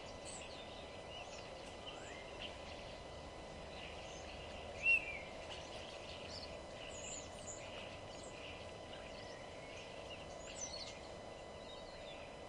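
Many small songbirds chirping and singing in short, scattered notes, over a steady low background hum. One chirp about five seconds in is louder than the rest.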